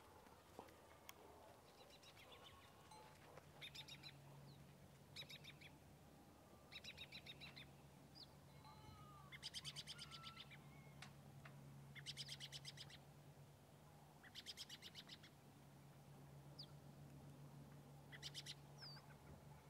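Faint animal chirping: short trills of rapid clicks, high in pitch, repeating every second or two, over a steady low hum.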